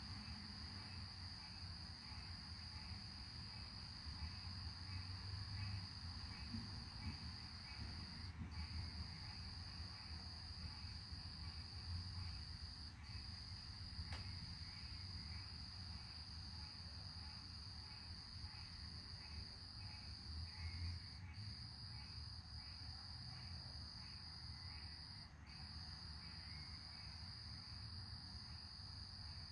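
Night insects calling: a steady high trill with brief dropouts, and a fainter rhythmic chirping of about two pulses a second beneath it. A low rumble runs underneath.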